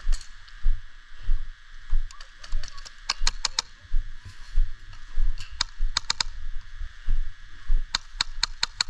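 Airsoft gun shots in three quick strings of four to six sharp cracks, over regular heavy thumps of footsteps jolting the body-worn microphone.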